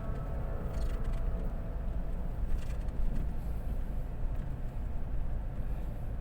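Vehicle driving on a city road: a steady low rumble of engine and road noise.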